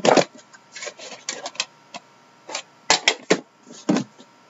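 Trading card boxes and packaging being handled: a quick series of short rustling, scraping and tapping sounds, irregular and some louder than others.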